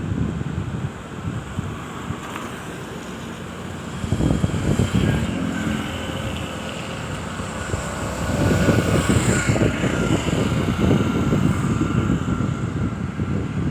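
Wind buffeting the microphone in gusts over the steady rush of flood water pouring out of the dam's spillway gates. The gusts swell about four seconds in and again over the second half.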